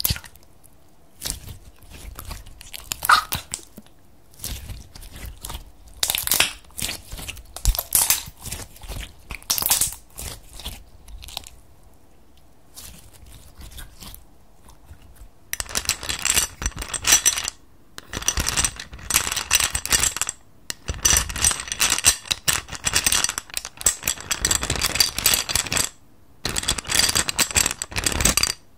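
Clear glitter slime being squeezed, folded and stretched by hand, with sticky clicks and crackling pops of trapped air. The crackling turns dense and nearly continuous about halfway through.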